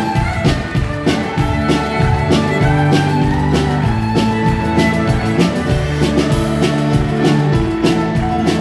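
Live country band playing an instrumental passage, with guitar over bass and drums keeping a steady beat.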